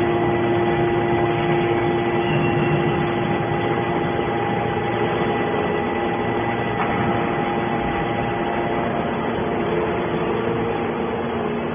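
Hydraulic power unit of a scrap metal baler running steadily, a continuous hum with a few held tones, as the ram cylinder strokes. Some of its tones fade out about nine seconds in.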